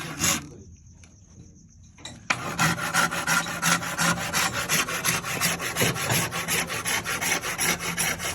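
Wood being cut by hand with rapid, evenly repeated scraping strokes, like a handsaw or rasp working quickly. There is one stroke at the start, then a pause, then a continuous run of strokes from about two seconds in.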